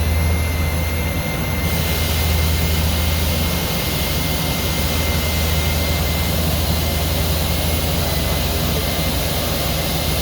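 Fein drill running steadily as it cuts through thick steel: a constant low motor hum with a thin high whine and a hiss of cutting. The hiss grows brighter about two seconds in.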